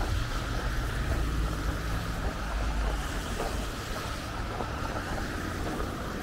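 Road traffic going by on a busy street, with a low rumble strongest in the first half that fades, mixed with wind on the microphone.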